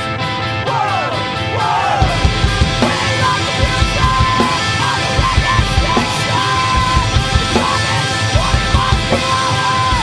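Punk rock by a guitar-and-drums duo: electric guitar, with the drums coming in about two seconds in, and loud, yelled singing over it.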